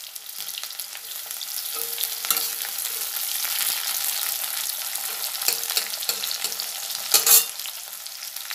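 Sliced onions sizzling and crackling in hot mustard oil in a metal kadai while a steel spatula stirs and scrapes them against the pan, with one louder scrape about seven seconds in. The onions are being lightly fried just until soft.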